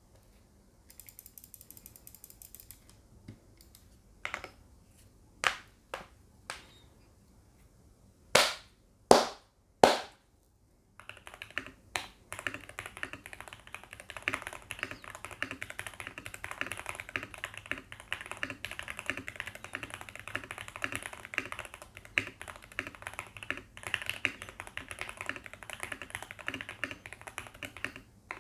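A Heavy Shell Kira96 mechanical keyboard with factory-lubed Gateron Pro Yellow linear switches and PBT keycaps, its PCB tape-modded and foamed for a poppier, thockier sound, being typed on. It starts with a few single keystrokes, including three loud, heavy strikes about nine seconds in. From about eleven seconds in there is fast, continuous typing.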